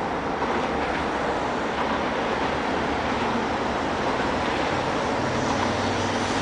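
Steady rumbling background noise at an even level, with no distinct bangs or pops.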